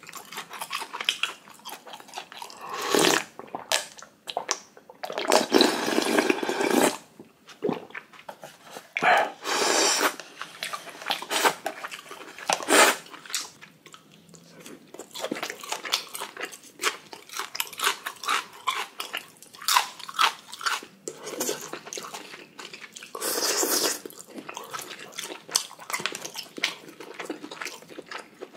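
Close-miked eating sounds: loud slurps of icy cold naengmyeon noodles and broth, each about a second long and several in a row, with chewing and crunching between them.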